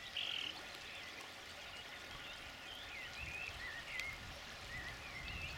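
Shallow river water running over gravel, a steady, soft rush, with faint short bird chirps scattered throughout.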